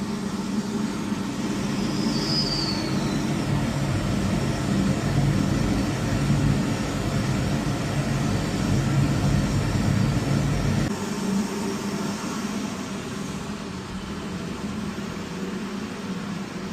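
Boiler burner firing on low fire just after lighting, a steady rumbling roar in the boiler room. About eleven seconds in the deepest part of the rumble drops away, and a brief high squeak sounds about two seconds in.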